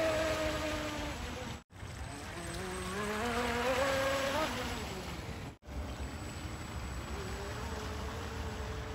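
Brushless-converted Radio Shack Gamma Ray RC speedboat running fast on the water, its 3270 kV brushless motor giving a high whine that falls, rises and falls again, then holds steady. The sound cuts out abruptly twice, just under two seconds in and about five and a half seconds in.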